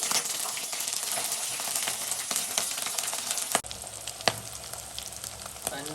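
Soaked dried fish frying in hot oil: a steady sizzle full of fine crackles and spits, with two sharper clicks in the middle. The sizzle drops in level a little past halfway.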